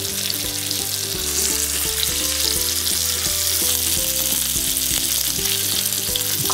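Chicken cutlets wrapped in prosciutto sizzling steadily in hot olive oil in a cast-iron skillet, seam side down on the first side.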